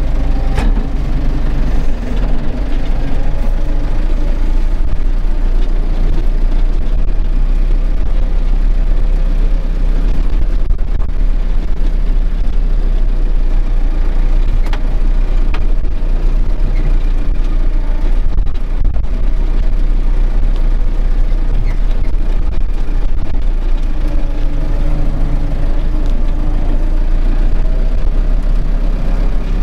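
Tractor's diesel engine running steadily as it drives along a rough, muddy forest track, heard from inside the cab, with a few short knocks and rattles as the cab bounces.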